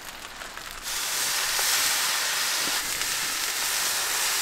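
Water squirted from a squeeze bottle onto a hot flat-top griddle, sizzling and hissing into steam. The hiss starts suddenly about a second in and carries on steadily.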